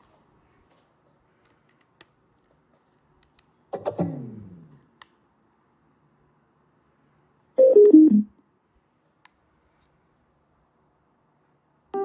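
Bluetooth speaker electronic chimes: a falling series of tones that dies away about 4 s in, then a quick, louder falling run of about four notes near 8 s. Faint single clicks come in between.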